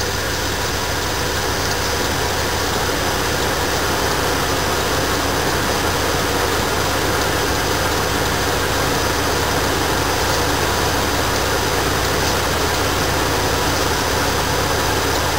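Dodge Ram van engine idling steadily with the hood open.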